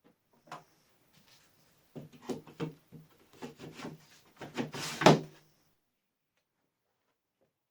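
A string of knocks, clunks and sliding scrapes of parts being handled and set on a homemade wooden saw table, the loudest clunk about five seconds in, then quiet.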